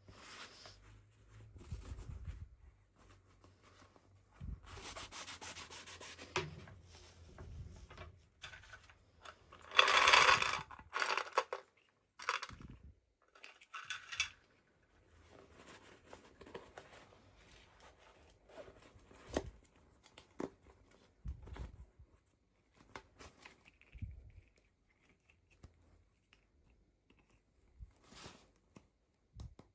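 Hands unboxing toy packaging: irregular rubbing and rustling, with a loud burst of tearing about ten seconds in and scattered small clicks and taps.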